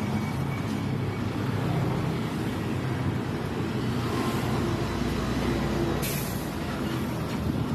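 Road traffic with a large truck's engine running close by, a steady low rumble. There is a short burst of hiss about six seconds in.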